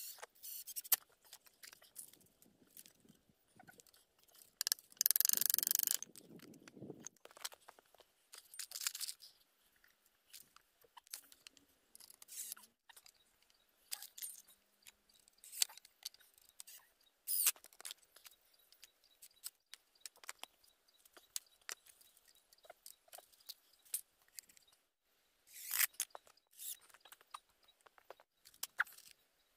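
Wooden boards and stakes being handled and fitted together while a sawhorse is built: scattered knocks, taps and clicks. A louder rasping burst lasts about two seconds around five seconds in, with a few shorter ones later.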